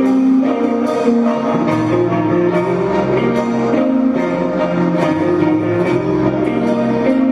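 Heavy metal band playing live with no vocals: a melody of held, sustained notes that change every half second or so, over a bass line and drums with cymbal hits.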